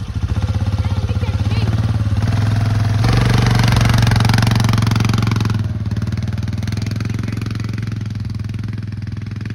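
Yamaha Big Bear ATV engine idling, then opening up about three seconds in as the quad pulls away; the engine note eases off near six seconds and fades as it drives off.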